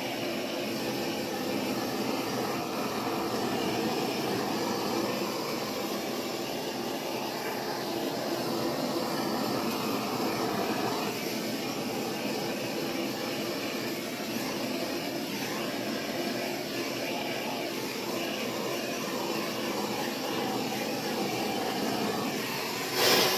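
Handheld gas torch on a cylinder burning with a steady hissing rush of flame, played over wet acrylic pour paint to pop the bubbles and bring up cells. The flame is shut off right at the very end.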